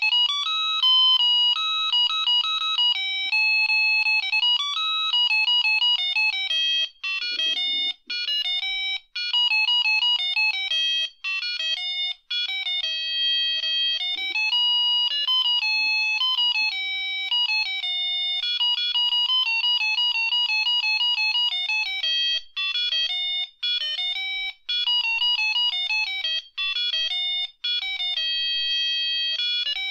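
Tiny piezo speaker of a Vogurtime LED star kit, driven by its microcontroller's PWM channels, playing a tinny beeping electronic tune. Quick runs of short notes mix with a few held ones, and there are brief breaks between phrases.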